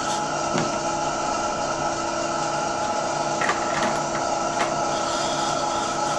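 Dental suction running steadily with a steady mechanical hum, while a few light clicks of steel dental instruments come and go.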